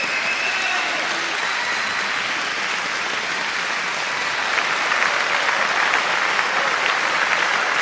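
Applause from a crowd, a dense clapping that grows slightly louder and fuller about four and a half seconds in.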